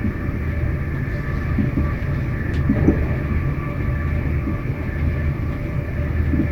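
Inside the carriage of an electric passenger train running at speed: a steady low rumble from the wheels and running gear, with a faint steady hum of higher tones over it. A light click about two and a half seconds in.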